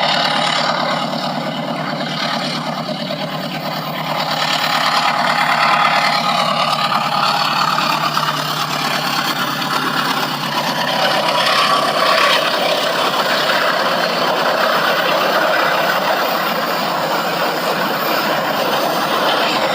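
A train running past: a steady engine sound mixed with wheel and rail noise, getting a little louder a few seconds in.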